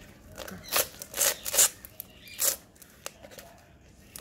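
Hands pressing and scraping potting soil in a black plastic plant pot: four short scraping rustles, the last about two and a half seconds in.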